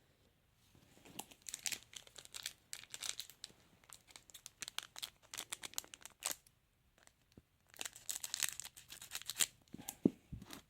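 A trading card packet wrapper being torn open and crinkled by hand, with a run of quick, irregular crackles and rustles that pause briefly now and then.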